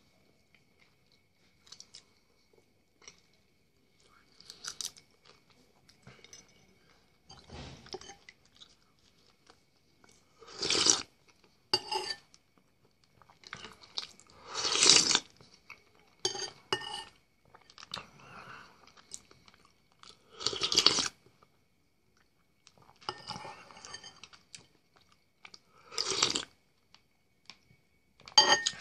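A man eating soup from a spoon close to the microphone: chewing and noisy mouthfuls. It is quiet for the first ten seconds or so, then louder bursts of mouth noise come every one to three seconds.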